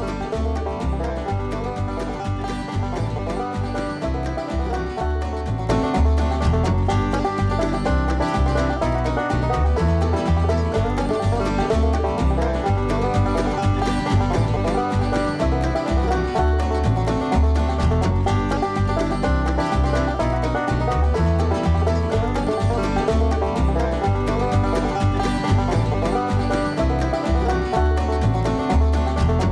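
Music with a steady bass beat, a little louder from about six seconds in.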